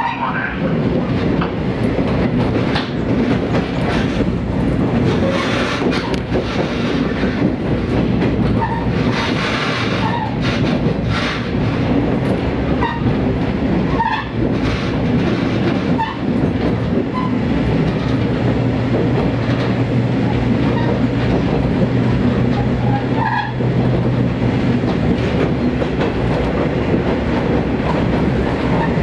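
Diesel train running along the track on a non-electrified line, with wheels clicking over the rail joints and a continuous rumble. A steady engine hum grows stronger for several seconds past the middle.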